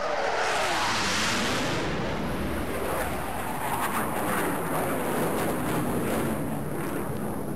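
Electronic sound-design soundscape: a loud rushing noise swells in with a tone sliding downward over the first second, churns on with flickering crackle and a faint high whistle, and fades out near the end.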